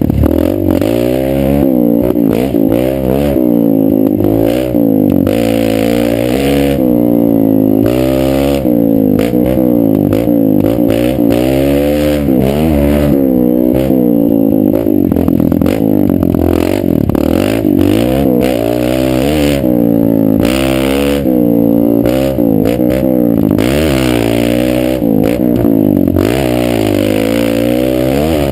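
Kawasaki KLX140L dirt bike's single-cylinder four-stroke engine being ridden hard, revving up and dropping back over and over as the rider works the throttle and gears, with wind rushing over the helmet microphone.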